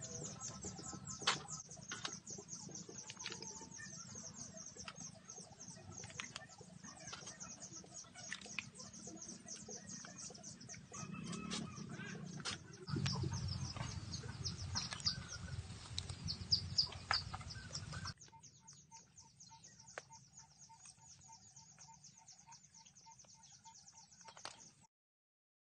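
Wood fire crackling under a corrugated metal sheet of roasting snails: frequent sharp pops and ticks over a steady hiss, with shells clicking as they are set down on the hot metal. About eighteen seconds in it drops sharply to a much quieter background with a faint, evenly repeated chirp.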